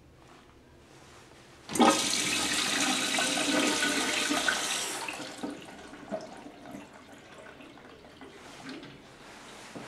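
Gustavsberg urinal flushing from its chrome wall-mounted flush valve: water rushes in suddenly about two seconds in, runs loudly for about three seconds, then tapers off to a softer flow.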